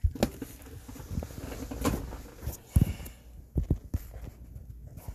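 Irregular soft taps, knocks and rustles: handling noise from the phone that is recording, as its screen is touched and scrolled.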